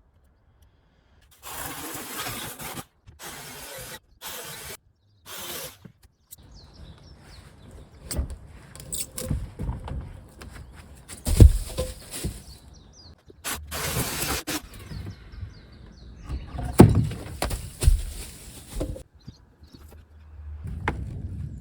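Demolition work on heavy wooden railway sleepers: short bursts of scraping and knocking, with two loud heavy thuds, one about halfway through and another a few seconds later.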